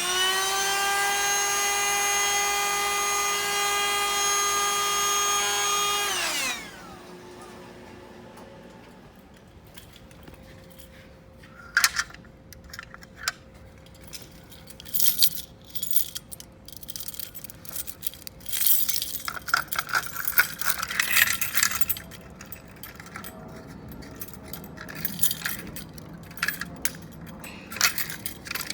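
Fire alarm siren winding up, holding one loud steady tone for about six seconds, then winding down and stopping: the system going into alarm on a smoke detector test. Then scattered clicks and metallic jangling, like keys being handled.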